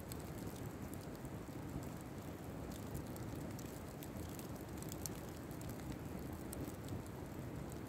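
Open fire burning: a steady low rush of flames with scattered small crackles and pops.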